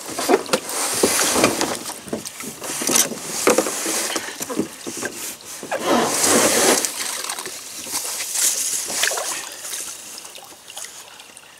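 A kayak being dragged and handled in shallow water at the river's edge: irregular scraping and splashing, coming as rushes of noise every couple of seconds that fade out near the end.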